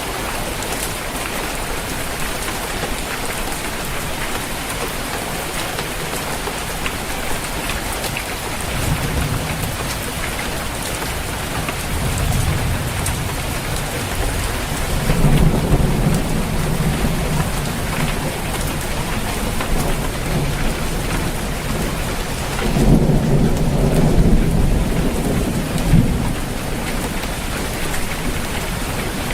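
Steady rain on a roof, with thunder rumbling in from about nine seconds in; the rolls are loudest a little past the middle and again a few seconds before the end.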